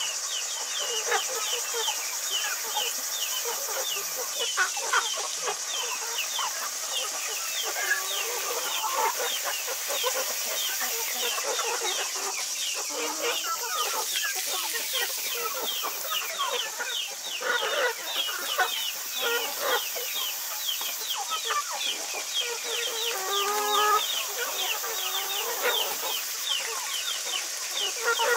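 Mixed flock of hens, black Australorps and Light Sussex, clucking and calling off and on. A steady high hiss and a constant rapid high chirping run beneath the calls.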